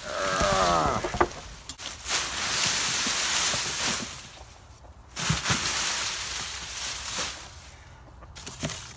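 Dry corn stalks rustling and crackling as they are pulled up and gathered, in two long stretches of rustling. At the very start there is a short, loud pitched sound that falls steeply in pitch.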